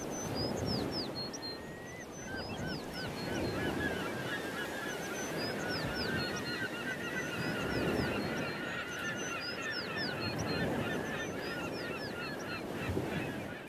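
A flock of birds calling, many short overlapping calls at once, over a steady low background noise.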